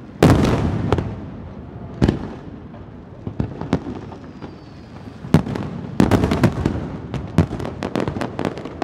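Aerial firework shells bursting. A heavy boom just after the start rings on for about a second, another bang follows about two seconds in, and a rapid run of sharp bangs and crackles fills the last three seconds.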